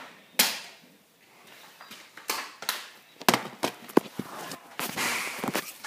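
Close-up handling noises: a sharp knock about half a second in, then a run of clicks and taps, and a short rustle near the end.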